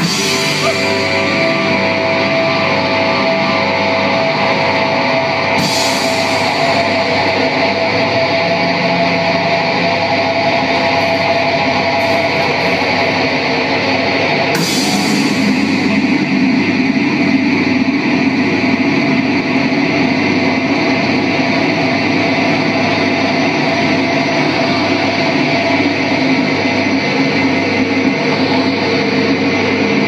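Live rock band playing loudly: electric guitars over a drum kit, with crashes about six and fifteen seconds in.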